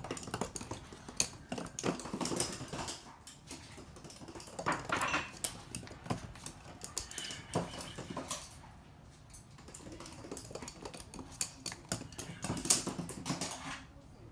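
Toy poodle moving about on a hard wood-look floor, its claws clicking irregularly, with scattered sharper knocks.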